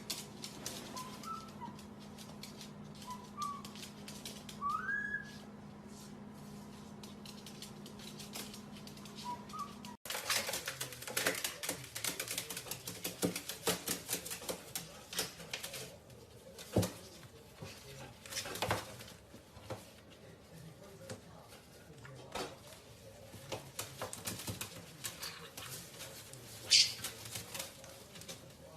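A pet parrot gives a few short whistle notes, one a quick rising glide, over a steady hum. After a cut come irregular tapping and clicking sounds, with one brief high parrot call near the end.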